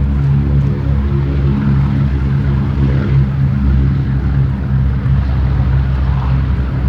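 Boeing B-17G Flying Fortress's four Wright R-1820 Cyclone radial engines running steadily, a deep, even multi-engine drone with a strong low hum.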